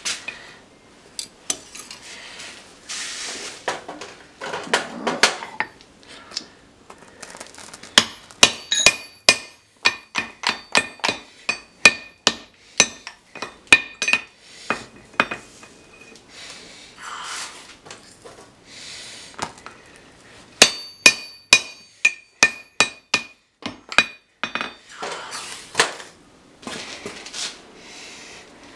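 Hand hammer striking red-hot 4140 tool steel on an anvil, forging a nail header: two runs of quick blows, each ringing briefly. Softer scraping sounds of handling fall between the runs.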